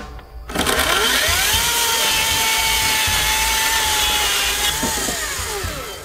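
Ryobi cordless electric chainsaw cutting through a pressure-treated lumber board. The motor whine rises as it spins up about half a second in, holds steady through the cut, then winds down and stops near the end.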